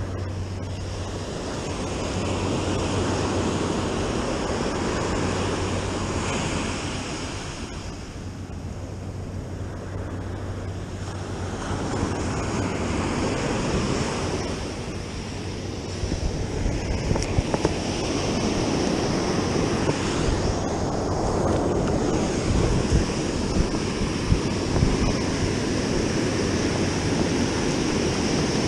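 Ocean surf breaking and washing up a sandy beach, swelling and easing every few seconds. In the second half, gusts of wind buffet the microphone in short, sharp peaks.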